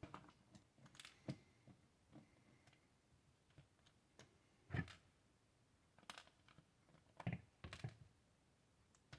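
Faint, irregular clicks and knocks of small parts being handled while a Nerf N-Strike Tech Target is taken apart, the loudest knocks a little before halfway and again about three-quarters through.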